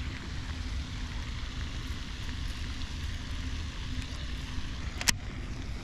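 Steady low outdoor rumble with a faint hum, and one sharp click about five seconds in.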